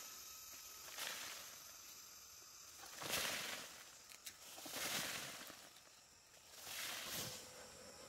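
Rustling of leaves and undergrowth in separate bursts, about one every two seconds.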